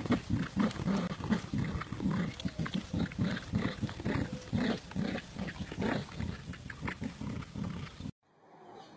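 Dogs growling in play while tugging on a toy, in rough pulses about three a second, cutting off suddenly near the end.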